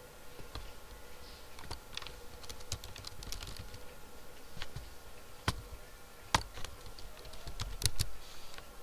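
Typing on a computer keyboard: irregular keystroke clicks, with a few louder strikes in the second half.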